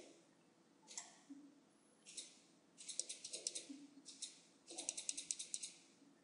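Faint clicking at a computer: a few single clicks, and two short runs of quick ticks about three seconds in and again around five seconds in.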